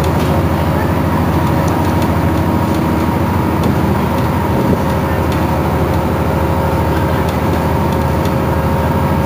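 Iveco Crealis city bus running steadily: a continuous low engine hum with a steady higher whine over it.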